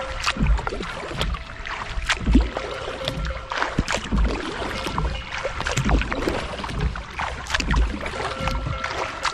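Paddle strokes of a kayak moving down a creek: the paddle dipping and pulling through the water with splashes and drips, and a low thud about every two seconds.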